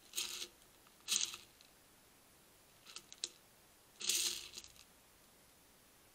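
Two European hedgehogs jostling at a shallow food tray, making four short, noisy bursts of sound in the first five seconds.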